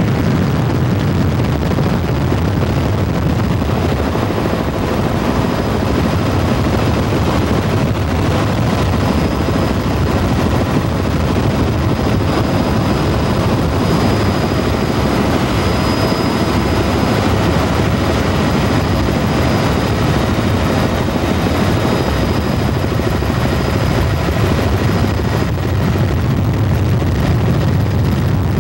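Steady drone of a helicopter's engine and rotor heard from inside the cabin, with a faint high whine throughout.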